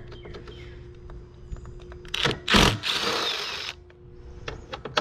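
Cordless impact driver backing out a T40 Torx screw, with a burst of rapid hammering about two and a half seconds in.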